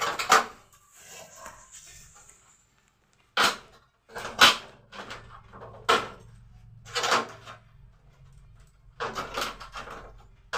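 Clacks and rattles of a plastic shower door's metal frame being handled and fitted by hand at its bottom rail: about half a dozen short, sharp knocks spread over several seconds.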